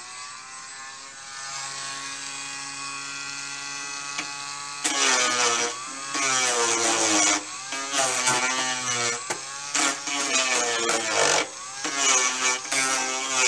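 Handheld electric rotary tool spinning up, running steadily unloaded for a few seconds, then sanding the plywood of an RC plane fuselage from about five seconds in, its whine dipping in pitch and turning louder and rougher each time it bites into the wood.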